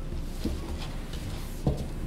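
Hands tossing a dressed soba noodle salad in a bowl: soft wet squishing with a few light knocks, the loudest one near the end.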